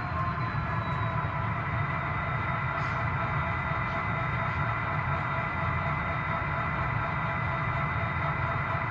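Model diesel locomotive running slowly on its track: a steady hum with several steady tones over a low rumble.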